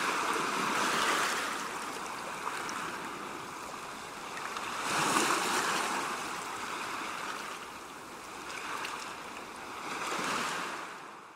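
Sea waves washing onto a calm shore, a steady rush that swells three times, loudest about five seconds in, and fades out at the end.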